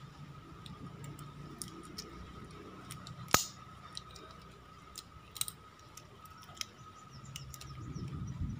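Scattered light clicks and ticks of small tools and carburettor parts being handled while the carb top is being taken off, with one sharper click about a third of the way in, over a faint steady hum.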